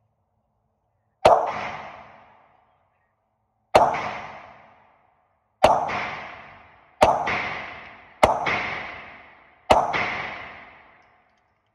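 Six pistol shots from a Polymer80-frame Glock-pattern handgun being test-fired, the gaps between shots growing shorter. Each sharp crack rings out briefly in the indoor range booth.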